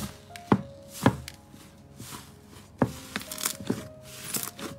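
Hands pressing into and kneading a thick, puffy slime. Trapped air gives about half a dozen sharp pops, with softer crackling squelches between them.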